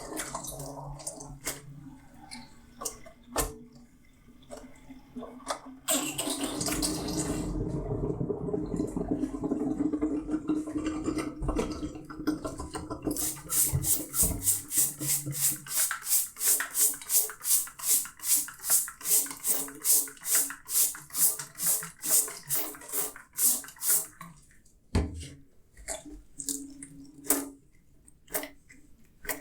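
Dishwashing at a sink: a few light clinks of dishes, then tap water running steadily for about seven seconds, then a long run of even scrubbing strokes, about three or four a second, ending in a few scattered knocks.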